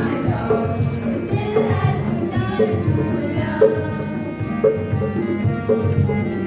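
Instrumental music with a steady beat about once a second and quick jingling percussion, like tambourine or shaker, between the beats.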